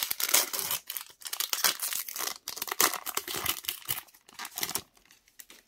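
Foil wrapper of a Pokémon trading-card booster pack crinkling and tearing as it is ripped open by hand, a run of sharp crackles that thins out near the end.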